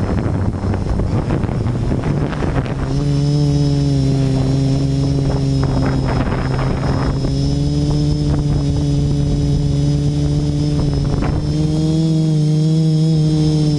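Quadcopter's electric motors and propellers heard close up from on board: rushing wind noise on the microphone for the first few seconds, then a steady multi-tone hum with a faint high whine as the quad lifts off and hovers. The pitch wavers slightly near the end.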